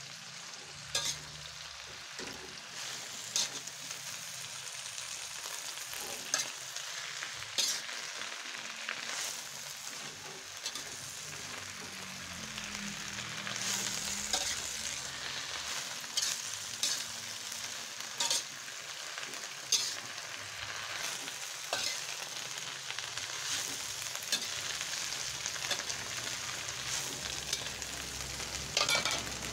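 Water spinach and red chillies sizzling in a wok as they are stir-fried, with a spatula knocking and scraping against the pan every second or two.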